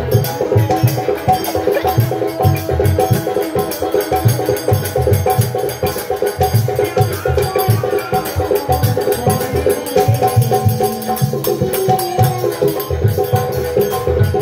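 Instrumental nam kirtan music: a sustained reed melody, likely a harmonium, over a steady drum beat and repeated clashing hand cymbals, with no singing yet.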